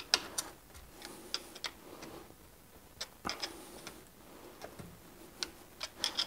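Scattered light clicks and taps as an old brake pad is pried and wiggled back and forth with a flathead screwdriver to work it out of the front brake caliper of a Mercedes C300 W205 with the Sport Brake Package.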